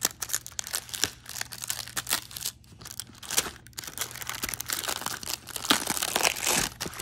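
Clear plastic wrap crinkling and tearing as it is pulled off a foam tool tray by hand: a dense, uneven run of sharp crackles.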